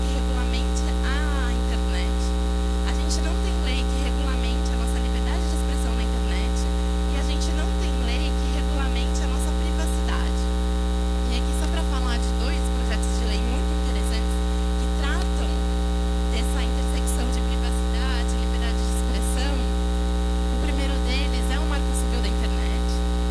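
Loud, steady electrical mains hum with a dense stack of overtones, unchanging in level throughout.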